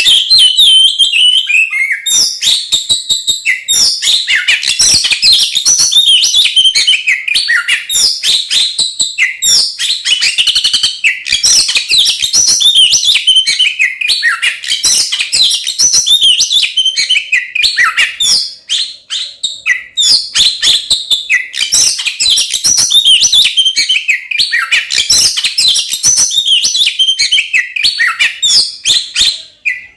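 Oriental magpie-robin (kacer) singing loudly in an almost unbroken stream of rapid, varied whistles and chattering notes, with only a brief pause about two-thirds of the way through. This is its agitated fighting-mode full song.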